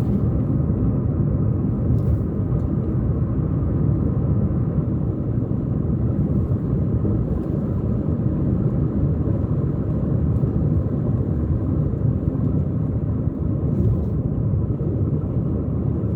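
Car driving at steady speed: a continuous low rumble of engine and tyre noise on the road.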